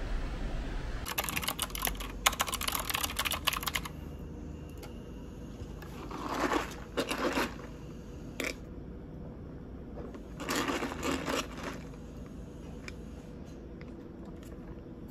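Mechanical keyboard clacking in a quick run of keystrokes for a couple of seconds, then a few shorter, duller sounds later on.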